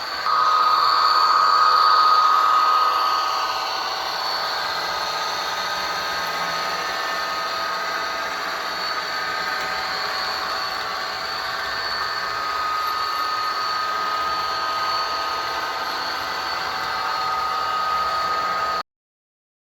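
Sound decoder of an HO scale SDP40F model locomotive playing EMD diesel engine sound through its small onboard speaker. It revs up just after the start, then runs steadily with a constant high whine, and cuts off abruptly near the end.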